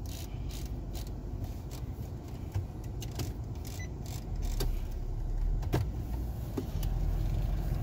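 Rapid clicking of a pickup truck's climate-control knobs being turned through their detents, with a button press near the end, over the steady low rumble of the vehicle cabin. The rumble grows louder about four seconds in.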